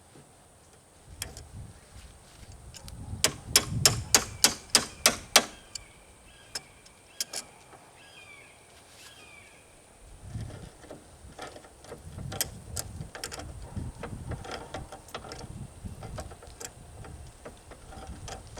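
Hand-tool work on a loader hydraulic cylinder: a quick run of about nine sharp knocks, about four a second, followed by scattered clicks and, later, low shuffling and handling noise.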